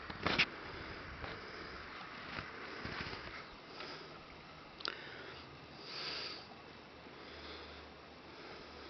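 Faint steady hiss broken by a few sharp clicks, the loudest just after the start and another about five seconds in. There are also short breathy sniffs close to the microphone, one louder about six seconds in.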